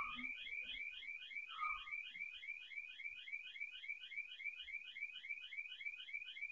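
Electronic intruder alarm siren sounding in the broken-into showroom: a fast warbling chirp repeating about four to five times a second, steady and unbroken.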